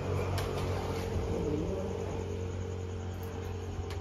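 A steady low mechanical hum, engine-like, with a few faint clicks.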